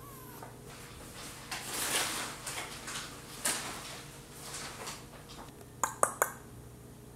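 Rustling and handling noises, then three sharp clicks or clinks in quick succession about six seconds in.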